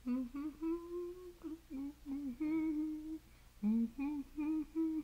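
A man humming a tune: a run of short and held notes, with a brief pause a little past halfway.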